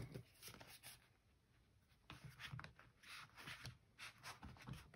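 Faint rubbing and rustling of a hardcover paper notebook being worked into the pocket of a stiff leather notebook cover, soft handling noises with a short quiet pause about a second in.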